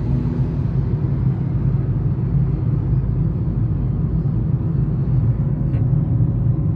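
Steady low rumble of a moving car, road and engine noise heard inside the cabin.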